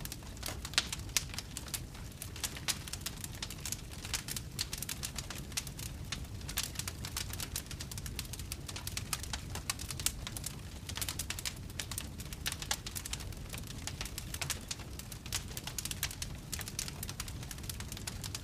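Wood fire crackling: frequent irregular sharp pops and snaps over a low steady rumble.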